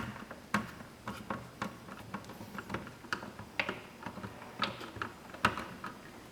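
Irregular light clicks and taps of a Phillips screwdriver working screws out of a vinyl cutter's front bracket, with small knocks of the loosened parts.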